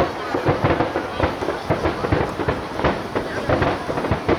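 Aerial fireworks bursting in rapid succession: a dense, continuous crackle of sharp bangs, several each second.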